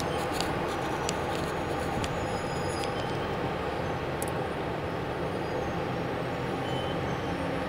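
Steady road traffic noise: heavy vehicles, a lorry among them, running their engines and moving slowly along a waterlogged road, with a few light ticks in the first few seconds.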